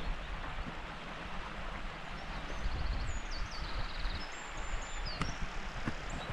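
Steady rushing of a hill burn (stream) with wind buffeting the microphone. Through the middle a small songbird sings a few high whistled phrases and a short rapid trill.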